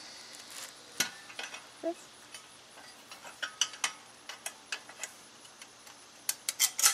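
Metal gazebo roof rafters and hub bracket clicking and knocking against each other as the rafters are fitted into the hub by hand: irregular sharp clicks, one strong one about a second in and a quick run of the loudest near the end.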